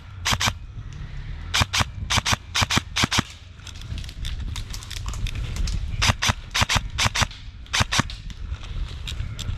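Airsoft guns firing: sharp snapping shots in short bursts of two to four, coming irregularly, over a low rumble.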